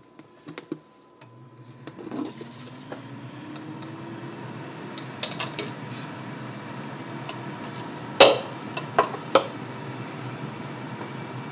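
A kitchen appliance switched on to preheat: a click, then its fan motor hums and rises in pitch over a few seconds before running steadily. A bowl and utensils knock and clatter several times, loudest about eight seconds in.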